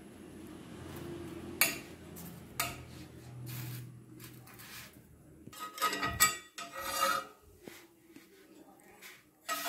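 Flat steel spatula scraping and clicking against a dosa griddle as a thin crepe is lifted and rolled up: a few sharp clicks, and a longer stretch of scraping about six to seven seconds in.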